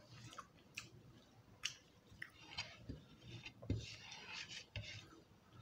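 Faint chewing and wet mouth sounds of people eating khichuri by hand, with scattered small clicks and smacks.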